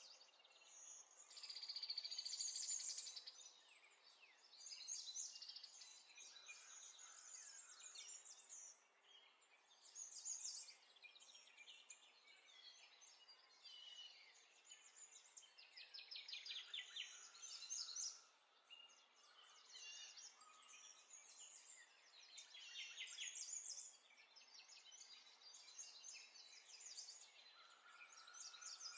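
Faint birdsong: birds chirping and trilling on and off, with a few short whistled notes.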